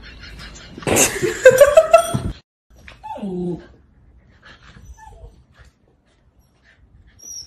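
A loud, harsh outburst with rising cries in the first couple of seconds, then a golden retriever puppy giving a short falling whimper at its reflection in a mirror, followed by a few faint yips.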